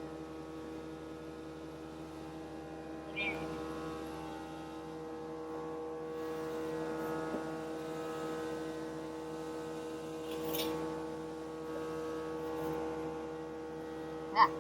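A steady hum made of several even tones, with a few faint knocks and one sharp knock just before the end.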